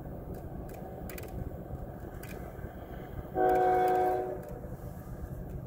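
Locomotive air horn on an approaching Norfolk Southern intermodal train sounding one blast of about a second, a little past halfway, over the train's steady low rumble.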